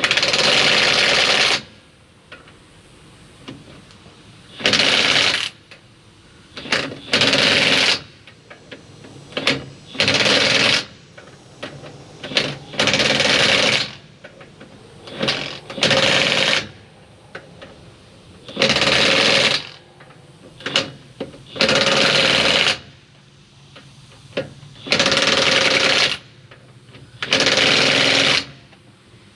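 Dewalt 20-volt 1/2-inch drive cordless impact wrench hammering on lug nuts in about ten bursts of roughly a second each, with a few short trigger blips in between.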